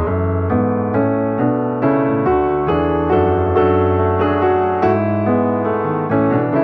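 Background piano music: a soft melody of struck notes over sustained bass notes.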